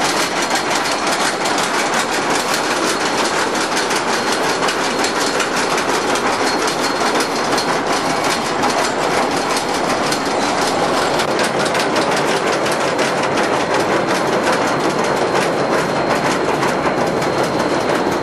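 Roller coaster train climbing the lift hill: a steady, rapid, even clacking of the lift chain and the anti-rollback ratchet under the cars.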